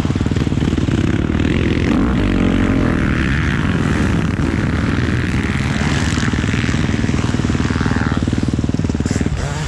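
Motocross bike engine running hard, heard close from an on-board camera, with wind rushing over the microphone. Near the end the engine note eases and drops.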